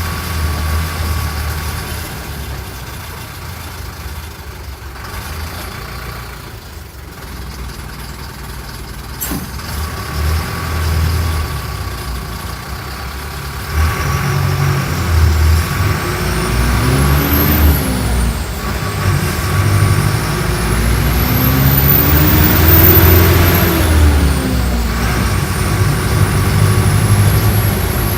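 Mercedes-Benz OF-1417 bus engine running quietly, with a short sharp sound about a third of the way in, then pulling harder: its revs climb and drop twice as it changes up through the six-speed gearbox, with a faint high whine rising and falling along with it.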